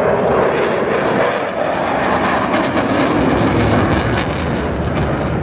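Twin-engined Eurofighter Typhoon jet in flight, a loud, continuous jet roar.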